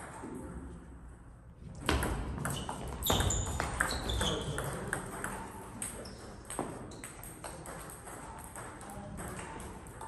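Table tennis ball clicking off paddles and the table in a quick rally, loudest for a couple of seconds from about two seconds in, then fewer, fainter ball taps.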